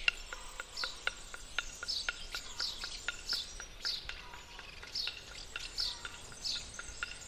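Birds chirping, short high calls about twice a second, over a steady fast ticking of about four clicks a second.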